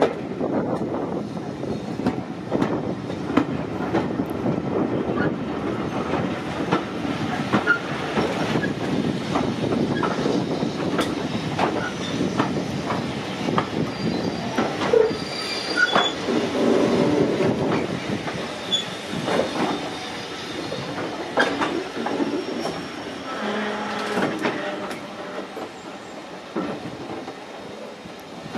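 Train carriage wheels running on the rails and slowing into a station, heard from the carriage window: a steady rumble with clicks over the rail joints and short wheel squeals. The sound eases off over the last few seconds as the train slows.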